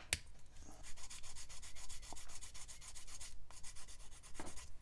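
Sanding stick rubbed quickly back and forth over a small plastic model boat hull, cleaning up sprue gates and mould seams: a fast, even run of scratchy strokes, several a second, with a short break about three and a half seconds in. A sharp click right at the start.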